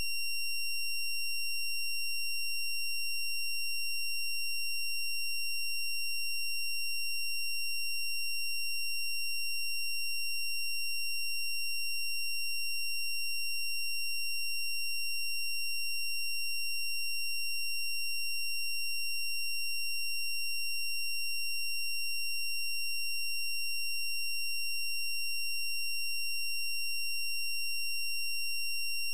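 Steady, unchanging high-pitched electronic tone with several higher overtones, like a test tone. It has replaced the programme audio entirely, the sign of an audio signal fault in the recording.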